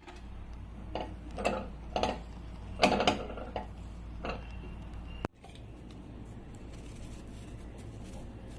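Kitchen utensils clinking and knocking: a handful of light strikes with a short ring, the loudest about three seconds in. Just past halfway the sound cuts off abruptly, leaving a faint steady background with light ticks.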